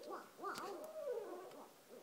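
Two barred owls calling together: a rapid run of overlapping rising-and-falling hooting calls that tails off near the end.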